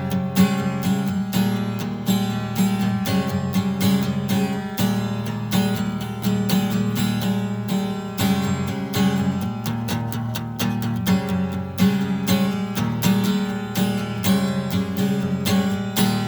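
Acoustic guitar played fast, with rapid plucked and strummed notes throughout.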